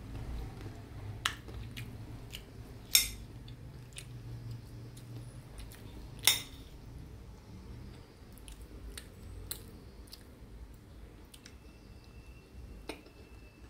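Metal spoon clinking and scraping against a ceramic plate as thick gravy is spooned onto it: several sharp clinks, two louder ones about three and six seconds in, over a low steady hum.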